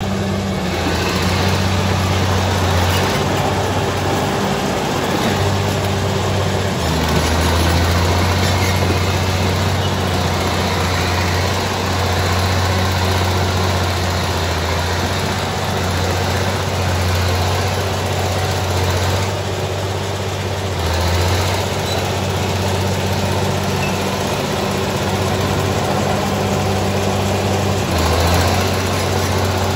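Crawler bulldozer's diesel engine running as the machine pushes soil and brush, its engine note shifting up and down several times.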